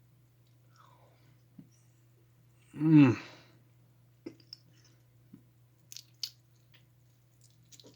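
A person biting off and chewing a very dense giant gummy bear: faint wet mouth clicks, with one short voiced grunt about three seconds in. A steady low hum runs underneath.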